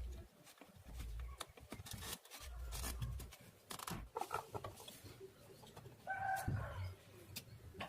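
Faint clicks and light handling noise from wires and small parts being worked on a workbench, over a low hum. About six seconds in there is a short pitched call, like an animal's.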